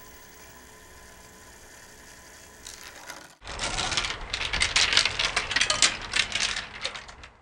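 A faint steady hum, then from a sudden start about three and a half seconds in, loud dense rattling and clicking from the marble-elevator kinetic sculpture's mechanism, cutting off abruptly near the end.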